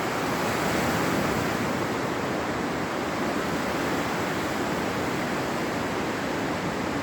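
Steady rushing of the fast-flowing Niagara River rapids, a constant even wash of water noise.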